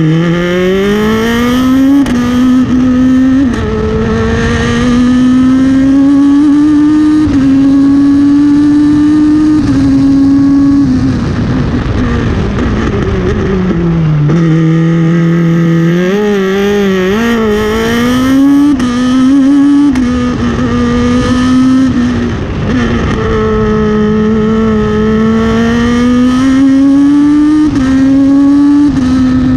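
Ligier JS53 Evo3 race car's engine heard from the cockpit, pulling hard through the gears: its pitch climbs and drops suddenly at each quick upshift. About halfway through the pitch falls as the car slows and shifts down, then it climbs through the gears again.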